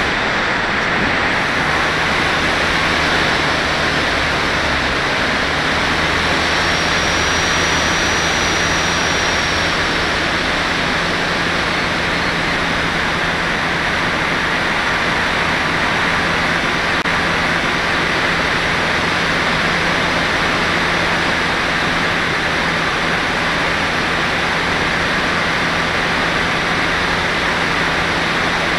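Steady rush of air over an FPV glider in flight, picked up by its onboard camera's microphone, with a faint steady low hum beneath it.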